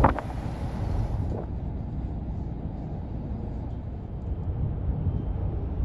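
Steady low rumble of the car ferry Queen of Oak Bay underway, with a short burst of noise right at the start and a higher hiss that cuts off suddenly about a second in.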